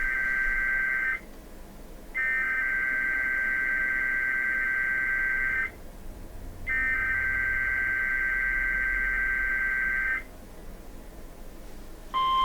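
NOAA Weather Radio SAME (Specific Area Message Encoding) header of a Required Weekly Test: a harsh two-tone digital data screech sent in bursts. The end of one burst is followed by two more, each about three and a half seconds long with about a second's pause between them. A steady alert tone begins just before the end.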